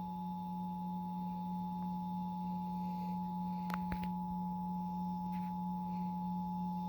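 Emergency Alert System attention signal: a steady two-tone alarm (853 and 960 Hz) played through a TV speaker, over a strong steady low hum. Two faint clicks come about four seconds in.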